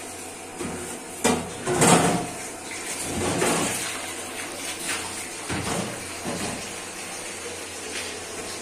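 Liquid pouring and splashing into a pot in a kitchen, in a few uneven gushes, with a sharp knock of a pot about a second in.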